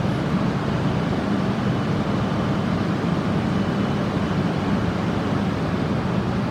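Shinkansen train at the platform: a steady low rumble with no distinct clanks or squeals.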